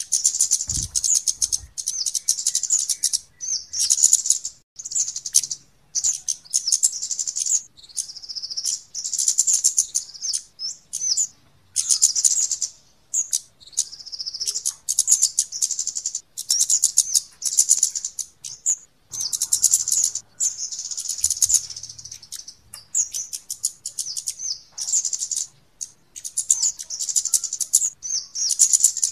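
Flowerpecker (kemade/cabean) lure calls: rapid, high-pitched ticking chirps in rattling bursts of a second or two, repeated over and over with short gaps.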